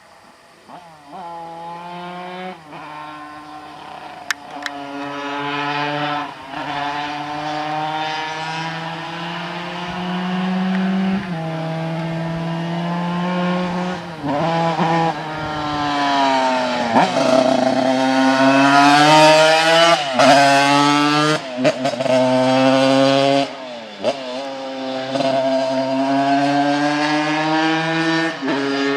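Simson two-stroke single-cylinder moped engine, bored out to 100 cc, pulling away about a second in and accelerating hard. Its pitch climbs and drops back sharply at each gear change or throttle lift, about a dozen times.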